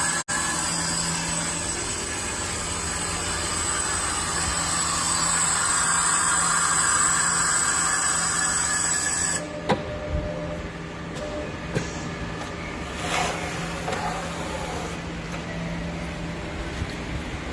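Makino BN2-85-A6 CNC milling machine running with a steady hum, hiss and high whine. About halfway through, the hiss and whine cut off suddenly, leaving a lower hum with a few sharp clicks.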